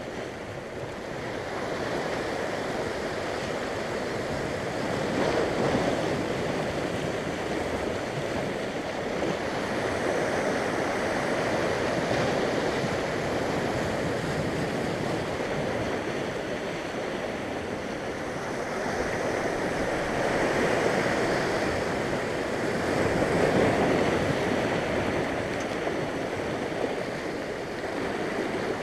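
Sea surf breaking and washing over shoreline rocks, a steady rush that swells louder several times as bigger waves come in.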